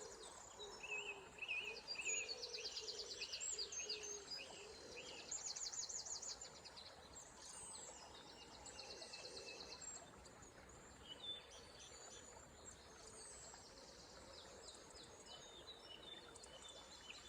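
Dawn chorus of several songbirds singing at once: fast high trills and quick repeated notes, busiest through the first half and thinning out later, over a faint steady background hum of the surroundings.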